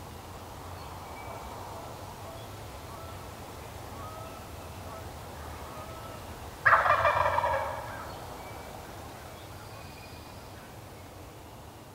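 A wild turkey gobbler gobbles once, loudly, about seven seconds in, the gobble lasting about a second.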